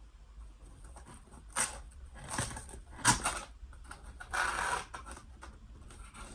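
Packaging handled and opened by hand: a few sharp clicks and taps, then a short rustle, as a Funko Pop figure's box is unpacked.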